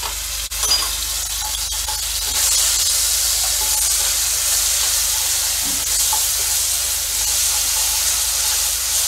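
Garlic and green chilli paste sizzling in hot oil with cumin seeds, being stirred with a wooden spatula in a kadhai. A steady hiss with a few light clicks of the spatula in the first two seconds; the sizzle grows louder a little over two seconds in as the paste is spread through the oil.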